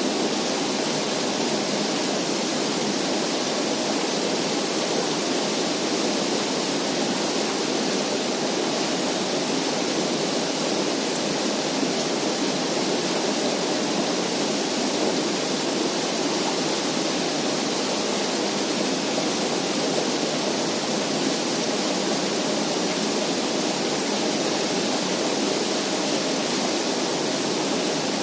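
An even, steady rushing noise that holds the same level without change.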